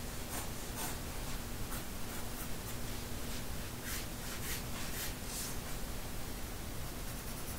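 Prismacolor pencil scratching across paper in short, irregular sketching and shading strokes, over a faint steady hiss.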